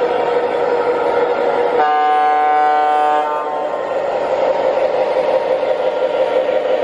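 MTH Premier Mark Twain Zephyr O gauge model train running along three-rail track, its Proto-Sound 2.0 diesel running sound playing steadily. Its electronic horn blows once, for about a second and a half, a couple of seconds in.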